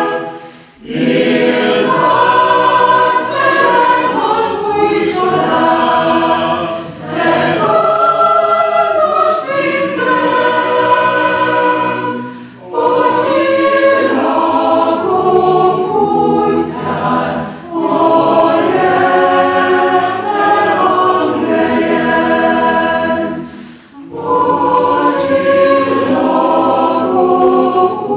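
Chamber choir singing in several parts, in phrases with short breaks between them.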